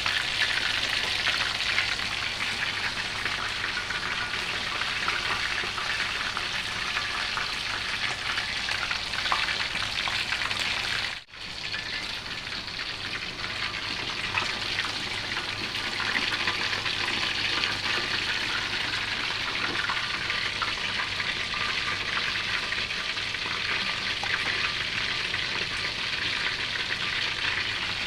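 Chicken pieces frying in hot oil, a steady sizzling crackle that briefly cuts out about eleven seconds in.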